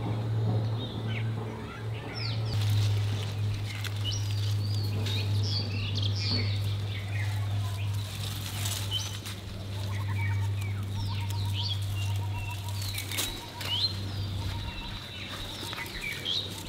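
Small birds chirping and calling, with many short rising and falling chirps, over a steady low hum.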